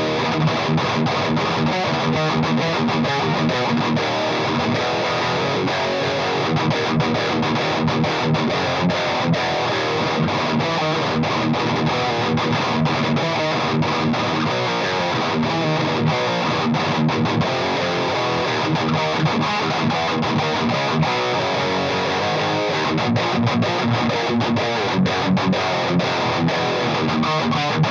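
Distorted electric guitar, an ESP LTD Deluxe tuned to E flat, played through a Marshall Vintage Modern 2466 100-watt valve head. The riffing is continuous and heavy in the low end, with frequent short stops between chords. It is a sound test of the amp's drive, which has no great amount of gain.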